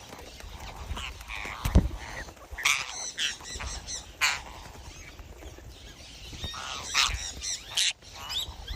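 Birds calling: short, irregular calls scattered through, some harsh and some with a clear pitch.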